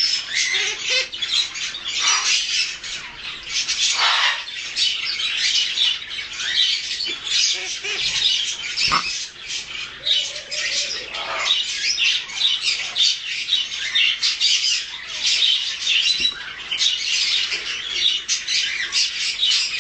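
Two-month-old Harlequin macaw chick (a blue-and-gold × green-winged macaw hybrid) making a continuous stream of rapid, raspy squawks.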